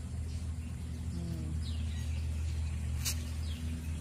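Birds chirping faintly, a few short calls falling in pitch, over a steady low hum, with one sharp click about three seconds in.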